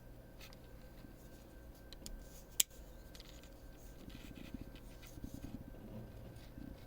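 Havalon replaceable-blade knife being handled during a blade change: faint scrapes and small ticks, with one sharp click about two and a half seconds in.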